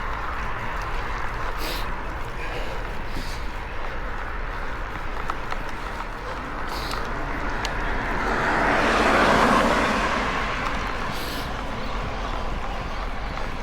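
A car passes, its road noise swelling and fading over about two seconds, over a steady rush of wind and tyre noise from a bicycle riding along the road.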